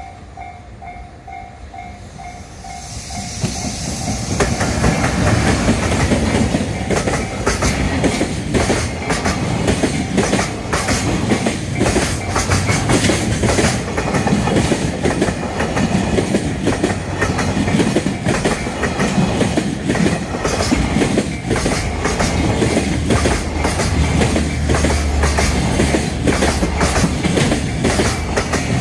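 Level-crossing warning bell ringing in quick repeated dings, then about three seconds in a train arrives and passes, its wheels clattering rhythmically over the rail joints and drowning out the bell.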